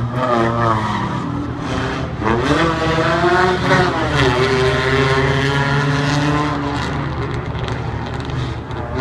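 Several stock-car engines running on the oval track together. One climbs in pitch about two seconds in and falls away again over the next few seconds as it passes.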